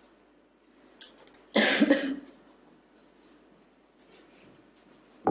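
A woman coughs once, about one and a half seconds in, a short half-second cough.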